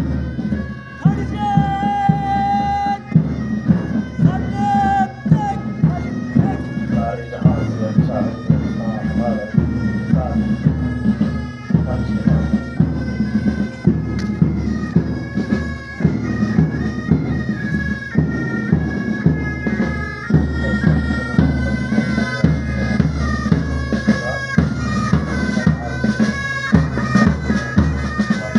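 Pipe band playing a march: bagpipes with their steady drones under the chanter melody, and drums beating the marching time.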